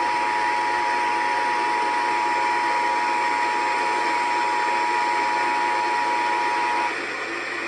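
Emergency Alert System two-tone attention signal, two steady tones sounding together just under 1 kHz over constant radio hiss, cutting off suddenly near the end.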